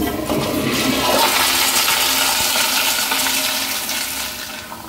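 Tankless commercial toilet with a flushometer valve flushing: a sudden, loud rush of water that starts abruptly, peaks about a second in, and tapers off near the end as the flush finishes.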